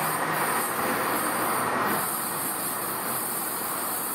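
Alstom Citadis Spirit light-rail train pulling away down the line, its rolling noise fading a little about halfway through.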